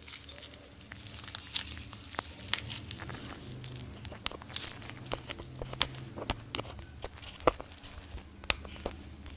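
Homemade slime being squeezed and stretched by hand, giving irregular crackling and popping clicks.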